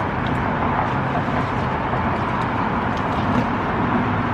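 Steady road traffic: a continuous rumble and hiss of passing cars.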